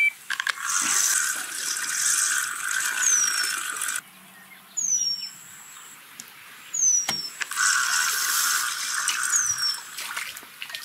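Fishing reel being cranked to wind in line, a steady mechanical whirring in two spells with a short pause between. Brief high, falling squeaks recur every couple of seconds.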